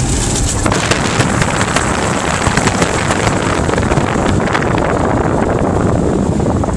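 Heavy wind buffeting on the microphone over the running engine and tyres of an off-road four-wheel drive on the move: a loud, steady rush with crackling spikes.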